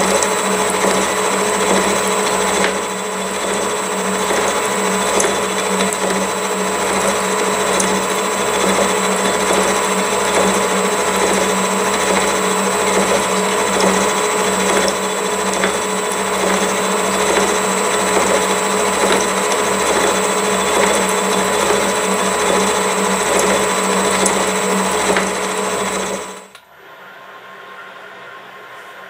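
Gear hob on a milling machine's high-speed head cutting teeth into a gear blank: a steady mechanical whir with a regular low pulse a little faster than once a second. It cuts off suddenly near the end, leaving a quieter hum.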